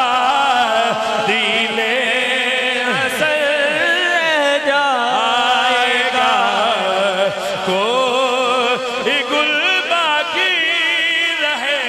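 A man singing a devotional verse solo into a microphone in long, wavering, ornamented melodic lines, amplified.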